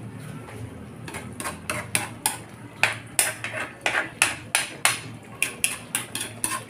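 Metal spoon clanking against the sides of a metal pan while stirring a thick coconut-milk stew: a run of sharp, irregular knocks, about three or four a second, starting about a second in.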